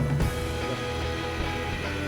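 Background music: steady held notes with a low bass line, changing notes about a quarter second in.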